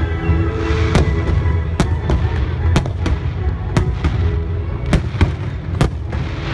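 Aerial fireworks shells bursting with sharp bangs, roughly one a second, two in quick succession about five seconds in, some followed by a crackling hiss. Music plays underneath.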